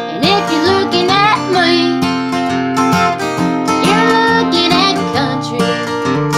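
1950s Gibson J-50 acoustic guitar strummed steadily in a country rhythm, with a woman singing along in several short phrases.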